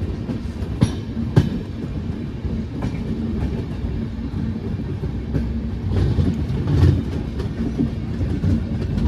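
Passenger train running on the track: a steady rumble from the coaches, broken by a few sharp clacks of the wheels on the rails.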